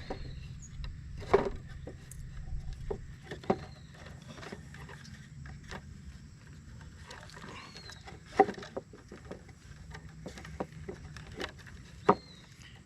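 Handling noises as a wooden beehive box is set up: scattered knocks and rustles, three of them sharper and louder, over a low steady rumble. A short high chirp comes about four times.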